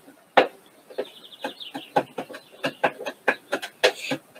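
Kitchen knife chopping vegetables and herbs finely on a cutting board, a quick run of knocks about three to four a second. A brief high, rapid twittering sounds about a second in.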